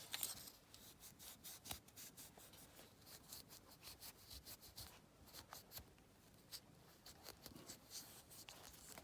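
Faint cloth rubbing on a small clear plastic window part of a die-cast model, polished by hand in short, irregular strokes.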